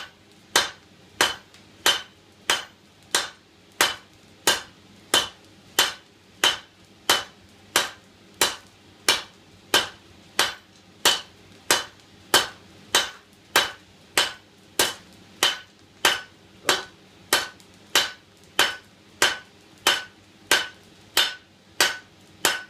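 Hand forging hammer, about 4.5 lb, striking a hot 16 mm round steel bar on an anvil in a steady rhythm, about three blows every two seconds. Each blow gives a short metallic ring. The blacksmith is drawing out the bar into a longer taper.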